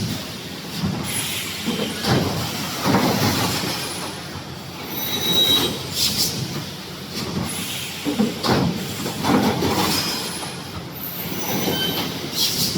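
3D wire mesh panel welding machine running, a continuous mechanical clatter with short metallic squeals. A sharp burst of hiss comes about halfway through and again near the end.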